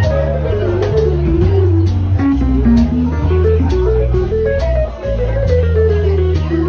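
Live band's instrumental break: a stepwise melody line over low bass notes, with the drum kit keeping time on the cymbals.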